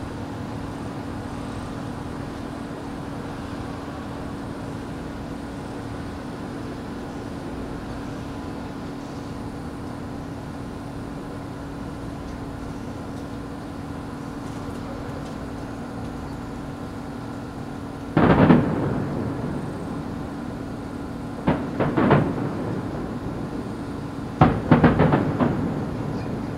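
Aerial firework shells bursting: a single loud bang about two-thirds of the way in, then a quick cluster of bangs, then another volley near the end, each rumbling away like thunder. Under them runs a steady low hum.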